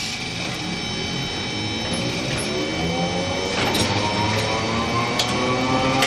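Hiroshima Electric Railway 570-series tram's nose-suspended (tsurikake) traction motors and gearing whining, the whine rising in pitch and growing louder as the tram picks up speed. A few sharp clicks come through over it.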